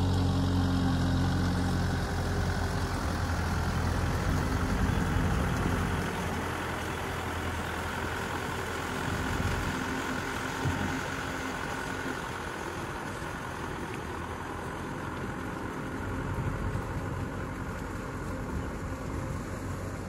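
Kubota M6040SU tractor's four-cylinder diesel engine running steadily while it pulls a rotary tiller through paddy mud. It is loudest at first and fades after about six seconds as the tractor moves away.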